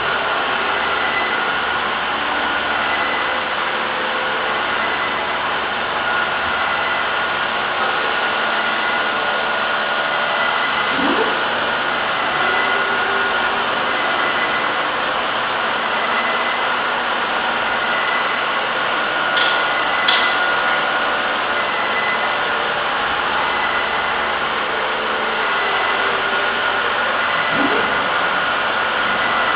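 CNC machine running while it cuts a lubrication groove in a part: a steady whirring hiss with two high whines held at constant pitch. Twice, about 11 seconds in and near the end, a short rising whir sounds as an axis moves.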